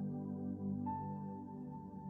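Soft ambient new-age background music of steady held tones, with a higher note coming in just under a second in.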